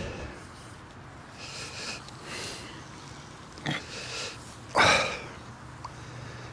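A man's breathing close to the microphone: several short breaths and sniffs, with a loud puff of breath about five seconds in.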